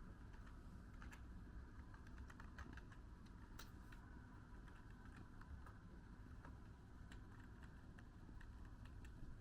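Faint, irregular light clicks, like keys being tapped, over a low steady hum.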